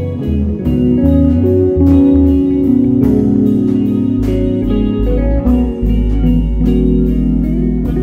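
Instrumental music: a guitar line over deep bass notes, with a steady ticking beat of about three ticks a second.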